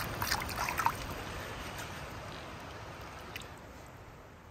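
Shallow mountain stream trickling over a rocky bed, with a few small splashes and drips in the first second. The water noise then fades down steadily.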